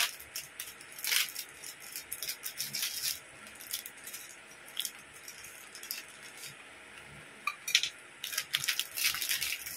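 Clear plastic bag crinkling and rustling in the hands as small plastic figure parts are unwrapped, with light clicks and rattles of the parts. The crackling comes in bursts, busiest about a second in and again near the end, with a quieter stretch in the middle.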